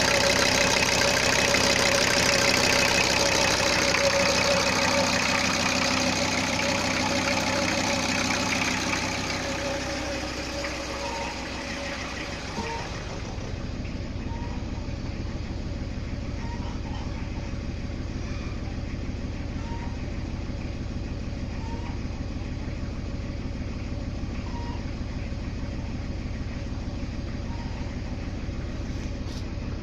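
VW T4 2.4-litre five-cylinder diesel running after a cylinder head rebuild, at a raised speed for the first several seconds, then settling to a lower, quieter idle about ten seconds in.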